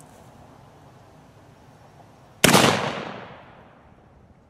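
A single shot from a Pietta 1858 Remington Sheriff .44 caliber black powder cap-and-ball revolver, about two and a half seconds in. The report dies away over about a second and a half.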